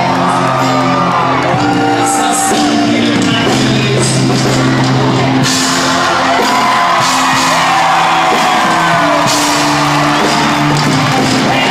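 Live pop ballad: steady band accompaniment under a girl's solo voice sung through a microphone, with audience whoops and cheers over it.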